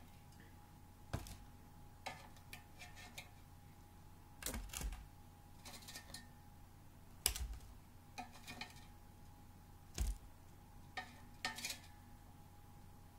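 Kitchenware and utensils clinking and knocking as chicken wings are taken out of an air fryer basket and handled. Separate sharp clicks and clatters come every second or few, over a faint steady hum.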